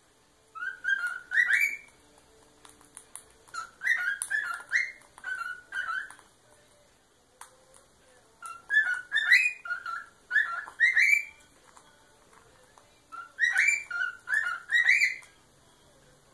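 Cockatiel whistling its song in four short phrases of stepping, rising notes, with pauses of a second or two between them.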